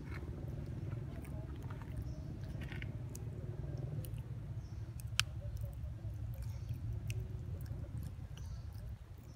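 Long-tailed macaque chewing and cracking food with crisp small clicks, one sharper crack about five seconds in, over a steady low rumble.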